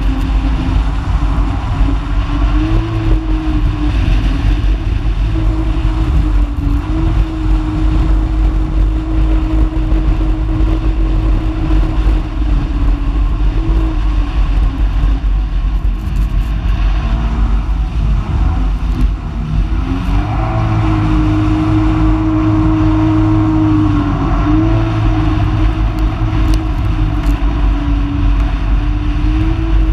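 Personal watercraft engine running at speed with wind and water rushing. The engine note sags for a few seconds about two-thirds of the way through, then climbs back as the throttle opens again.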